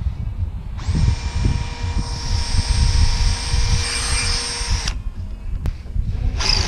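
Power drill running steadily for about four seconds, boring a hole in an RV awning roller tube with a small bit.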